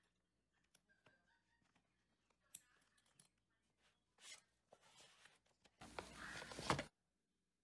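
Quiet handling noises: a few small clicks as a metal carabiner is clipped onto a plastic water bottle's loop, then near the end about a second of louder scraping rustle, a bottle against a nylon backpack side pocket.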